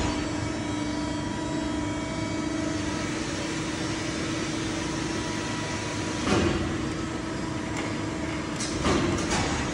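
Hydraulic pump unit of a 1979 Bronx 750-ton hydraulic press brake running under power: a steady hum with a constant tone. Brief louder rushes of noise come about six and nine seconds in.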